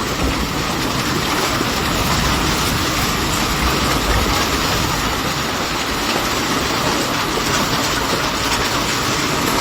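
Loud, steady roar of a severe thunderstorm, with no distinct breaks or hits.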